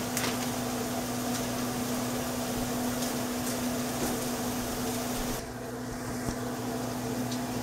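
Microwave oven humming steadily as it runs, under the hiss of vegetables sauteing in a pan and water boiling on the stove. The hiss dims for a couple of seconds near the end.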